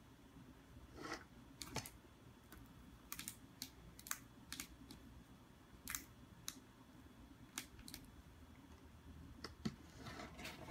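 Faint, irregular light taps and scratches of a cat's paws and claws on a cardboard box, a dozen or so separate clicks over a quiet room hum.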